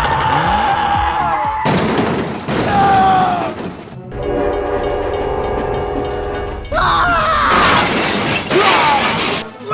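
A soundtrack of edited sound effects and music: sliding tones and a sudden noisy burst, then a steady horn-like tone held for a couple of seconds in the middle, then a noisy stretch with more gliding tones. Each part starts and stops abruptly.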